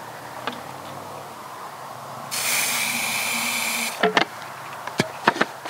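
Aerosol hairspray sprayed in one steady hiss of a little under two seconds, metering fuel into a combustion potato cannon's chamber. A few sharp plastic clicks and knocks follow.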